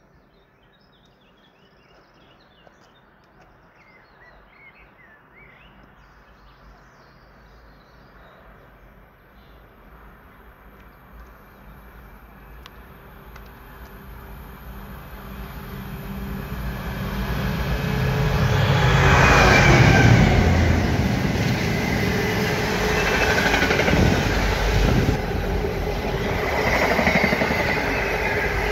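Intermodal container freight train approaching and passing: a rumble that grows steadily louder, loudest as the locomotive goes by about two-thirds of the way in, then the continuing rumble and clatter of the container wagons. Birds chirp faintly before the train grows loud.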